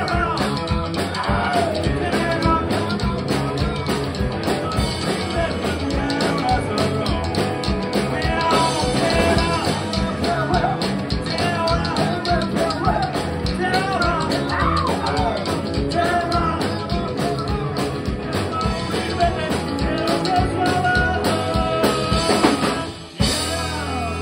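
Live rockabilly band playing: sung vocals over upright bass, hollow-body electric guitars and a drum kit. Near the end the sound cuts out for a moment before the band comes back in.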